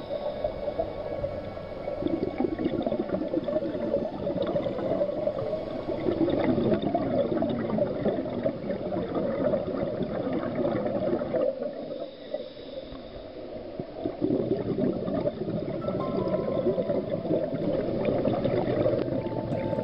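Scuba diver's breathing bubbles underwater: a dense, continuous gurgle of exhaled bubbles from the regulator, easing off in a quieter lull about halfway through before it resumes.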